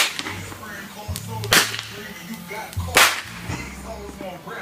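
Fireworks going off in three sharp cracks, evenly spaced about a second and a half apart.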